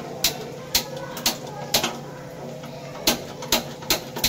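Sharp knocks of a kitchen utensil, four at a steady half-second pace, then after a short pause four more, over a steady low hum.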